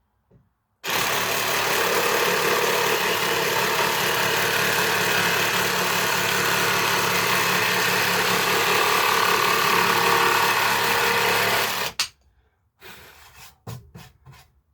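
Dewinner cordless jigsaw sawing through a thin piece of soft pine with the pendulum action off (setting 0). It starts about a second in, runs steadily for about eleven seconds and stops suddenly, followed by a few light clicks.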